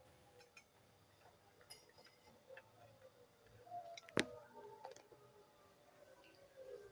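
Near silence broken by faint clicks and light taps of things being handled, with one sharper click a little past four seconds in.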